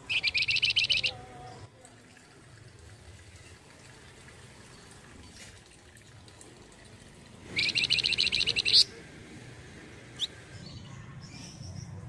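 Flamboyan, a small brown babbler, singing two short bursts of rapid, evenly repeated high notes, each about a second long: one at the start and another about seven and a half seconds in.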